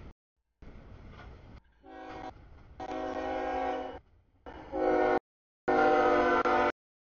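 Freight train rumble, then a diesel locomotive's multi-chime air horn sounding several blasts, the last the loudest, as it approaches the grade crossing; the sound cuts off abruptly between segments.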